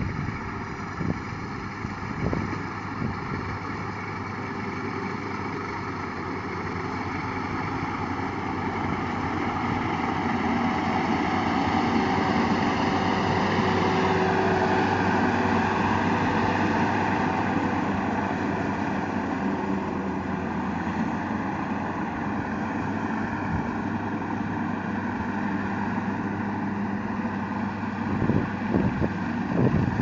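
Rice combine harvester running steadily as it cuts and threshes paddy, getting louder around the middle as the machine comes close. A few thumps near the end.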